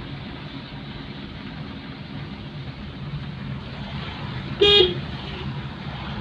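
A car horn gives one short toot about three-quarters of the way in. Under it, steady motor-vehicle rumble and road noise.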